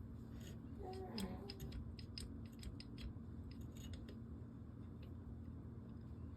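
Scattered light clicks and ticks of small metal trigger parts being handled and fitted into a rifle lower receiver while a forced-reset trigger's cam and safety selector are installed.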